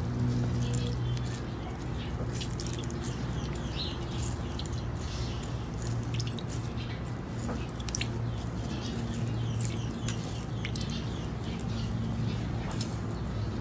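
Pounded ginger being squeezed by hand in a fine stainless mesh strainer: soft wet squelching and small sharp ticks, with ginger juice dripping into a glass bowl. A steady hum runs in the background.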